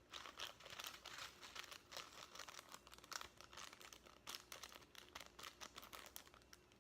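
Quiet, rapid, irregular crinkling and ticking of small beads being shaken out of their plastic container into a bowl of slime.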